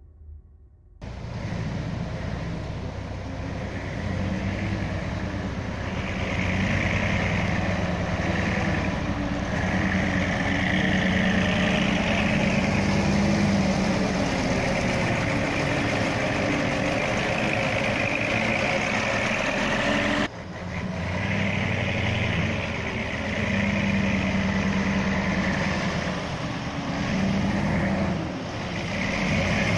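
Heavy dump truck's diesel engine running steadily while the truck tips a load of soil, with a sudden brief break about twenty seconds in.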